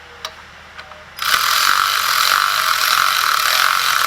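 A few light clicks, then from about a second in a ratchet wrench clicking rapidly and steadily for about three and a half seconds as it runs down the 13 mm bolt that holds the e-brake cable.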